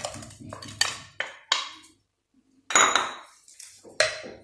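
A wooden spoon knocking and scraping against a ceramic bowl as diced bell peppers are tipped out into a frying pan: about five quick knocks, then two louder knocks of crockery and spoon later on.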